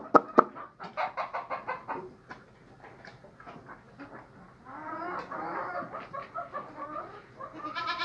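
A flock of chickens clucking, with a quick even run of short clucks about a second in and a busier stretch of overlapping calls from about five seconds.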